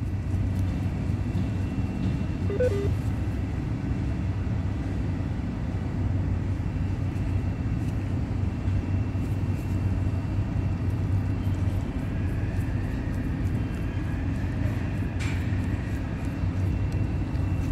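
A steady low mechanical rumble at a constant level, strongest in its lowest tones.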